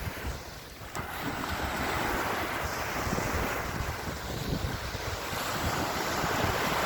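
Sea surf washing onto the beach, with wind rumbling on the microphone.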